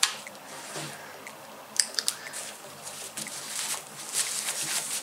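Rustling and crinkling of a disposable diaper being rolled up and handled by hand, with scattered light ticks and a couple of sharper clicks about two seconds in.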